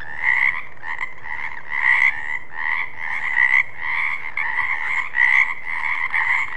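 Frogs croaking, calls repeating in a steady rhythm about one and a half times a second.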